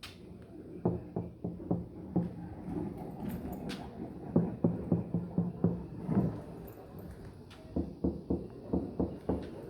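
Knocking by hand on a sound-deadened Toyota Corolla body panel, in several quick runs of short, low thuds that die away at once, showing the panel is damped.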